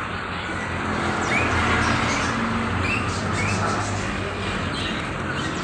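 Steady road traffic noise with caged birds chirping over it: a few short calls, two of them rising chirps about a second and a half apart.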